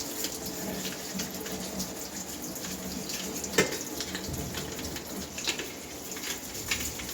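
Tap water running steadily while a removed dishwasher part is rinsed by hand, with small knocks of the plastic part against the sink and one sharper knock about three and a half seconds in.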